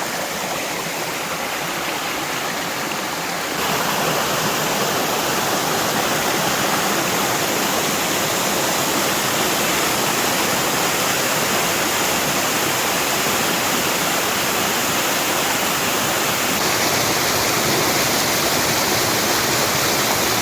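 Waterfall pouring steadily, a constant rush of falling water that gets louder and fuller about three and a half seconds in.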